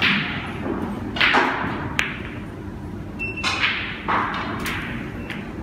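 A snooker shot: one sharp click of cue tip or ball on ball about two seconds in. Around it come several short hissing swishes, each fading out within half a second.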